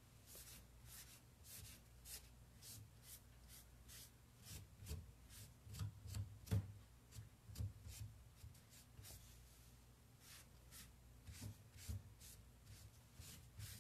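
Cloth rag rubbing excess dark furniture wax off a painted wooden dresser: faint, quick scuffing strokes, with a few soft low thumps about halfway through.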